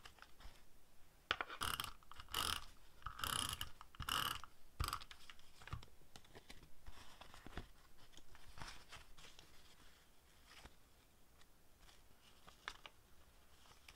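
Paper handled by hand: a quick run of sharp crinkling and tearing crackles for the first few seconds, then softer rustling with an occasional small rip as the edges of a printed paper scrap are torn rough.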